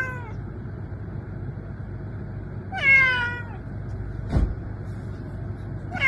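Tabby-and-white calico cat meowing: the end of one meow at the start, a full meow about three seconds in, and another beginning at the very end, each falling slightly in pitch. A short thump about four seconds in.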